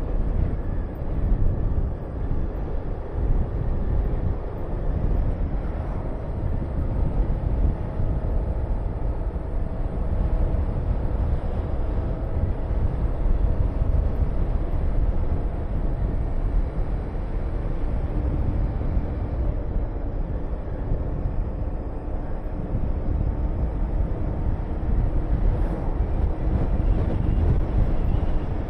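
Honda VTR250's V-twin engine running steadily while riding, under heavy wind noise buffeting the microphone.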